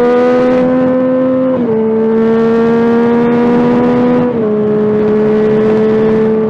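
Yamaha FZ-09 (MT-09) three-cylinder engine pulling under steady acceleration, its pitch climbing slowly, then dropping suddenly twice, about a second and a half in and again past four seconds, as the rider shifts up a gear, with wind and road noise underneath.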